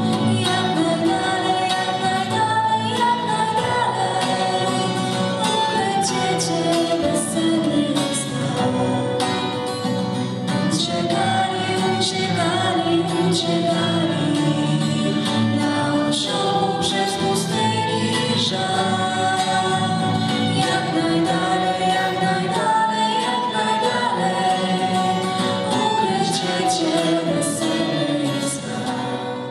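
A Christmas carol sung live by a female lead singer and a choir, accompanied by violin and acoustic guitar. The song dies away near the end.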